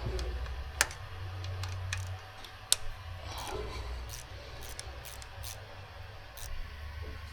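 Light metallic clicks and ticks from hand work on an engine's timing chain parts, with two sharper clicks about one and three seconds in, over a low steady hum.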